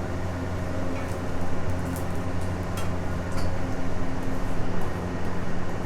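A steady low mechanical hum, with a few light clicks and taps in the first half.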